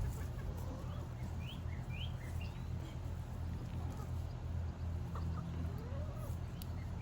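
Backyard chickens clucking, with a few short rising chirps about one and a half to two and a half seconds in, over a steady low rumble.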